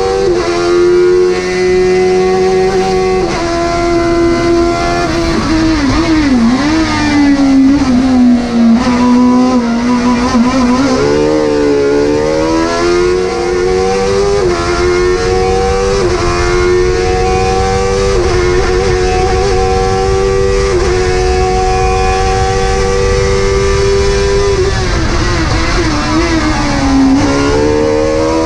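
Speedcar GTR race car's engine heard from inside the cockpit, running hard up a hillclimb: the note climbs through the gears with quick upshifts, each a sudden drop in pitch followed by a rising note. A few times the revs fall away and build back up as the car slows and downshifts for corners.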